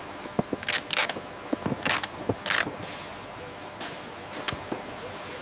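Machinery ambience of a packing line: scattered sharp mechanical clicks and several short hisses over a steady background noise.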